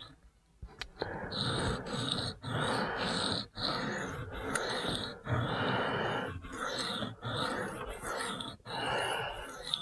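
Blade edge of a Spyderco Shaman in Cruwear steel stroked freehand along a wet sharpening stone. A run of raspy scraping strokes starts about a second in and goes about one a second, with short breaks between them.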